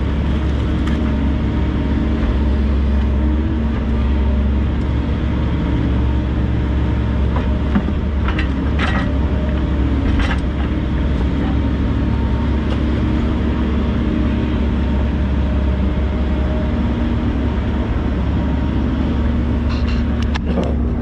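Volvo EC140 excavator's diesel engine running with a steady deep rumble. A few brief sharp sounds come about eight to ten seconds in and again near the end.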